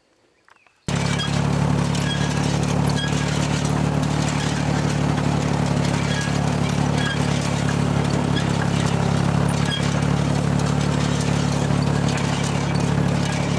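Tractor engine running steadily, towing an Allis-Chalmers side-delivery hay rake through cut hay, with faint regular clinks over it. It starts abruptly just under a second in, after near silence.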